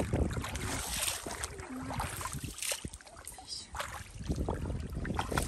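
Hands splashing and sloshing through shallow muddy water in irregular bursts while groping for fish.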